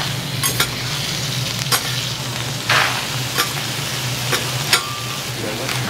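Okonomiyaki frying on a hot iron griddle: a steady sizzle over a low hum, broken by several sharp clicks and one longer scrape nearly three seconds in.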